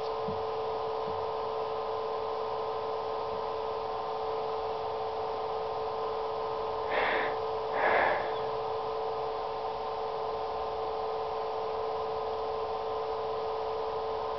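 A steady hum of several even tones. About seven and eight seconds in come two short rushing noises, the second louder.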